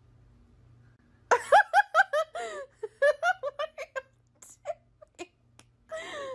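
A person laughing: a quick run of high-pitched giggles starting about a second in, breaking into shorter bursts and a few clicks, with a falling vocal sound near the end.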